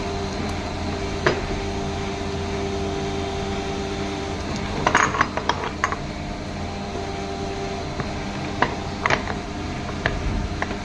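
Workshop machinery running with a steady hum, while metal parts are handled, giving sharp clinks and knocks once early, in a quick cluster about halfway through, and a few more near the end.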